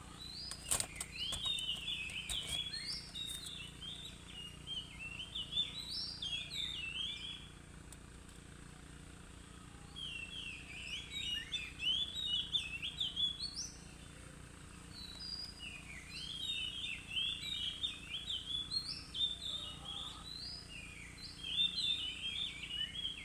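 Oriental magpie-robin singing in full voice: quick, varied phrases of whistled and chattering notes, in three bouts with short pauses between.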